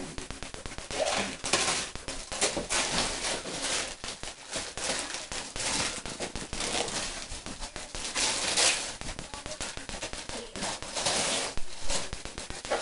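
Wrapping paper being torn and crumpled as a present is unwrapped, in irregular rustling and ripping bursts.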